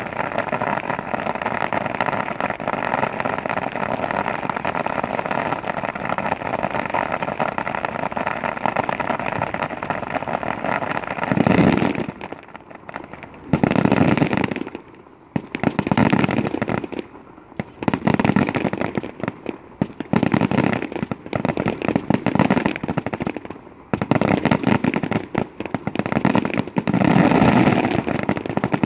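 Fireworks going off: about eleven seconds of dense, continuous crackling and popping, then a run of separate loud bursts roughly every two seconds, each crackling for about a second.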